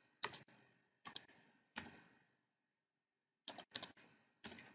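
Faint clicks of computer keyboard keys: six separate keystrokes at an uneven pace, as a six-digit code is typed in.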